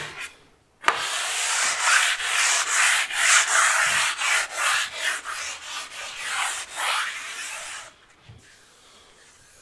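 Hand sanding of a dried primer coat on a painted ceiling with a fine abrasive foam sanding block: a rapid run of back-and-forth rubbing strokes. It starts about a second in and stops near the end. This is the light scuff-sanding of the primer that knocks down roughness and fibres before the finish paint.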